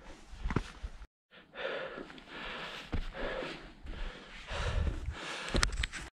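A hiker's heavy breathing while climbing steep ground, with a few short scuffs and knocks. The sound drops out briefly about a second in.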